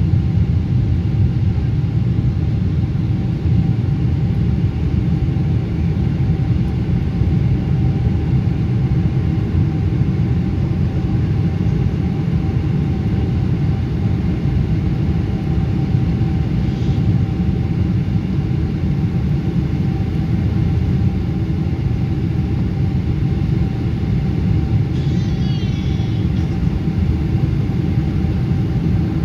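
Steady in-flight cabin noise of a Boeing 777 heard from a window seat over the wing: the low rush of airflow and jet engines, with a steady hum tone running through it.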